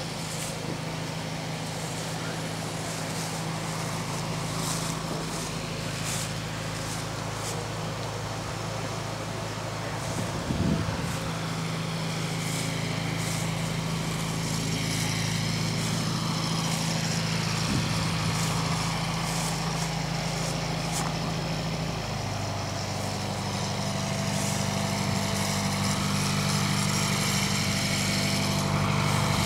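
An engine running steadily, its note shifting about two-thirds of the way through, with a brief knock about ten seconds in.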